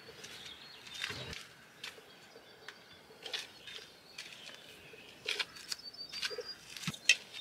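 Faint bird chirps over a quiet background, with scattered small clicks and knocks from handling things and one sharp click near the end.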